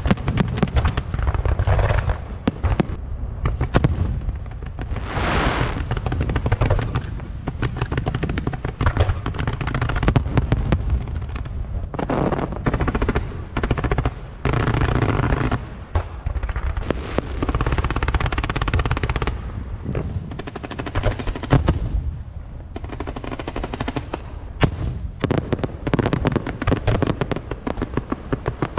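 Wind-fire wheel fireworks (風火輪) going off: a dense, rapid stream of sharp crackling bangs mixed with a rushing hiss that swells and eases in waves.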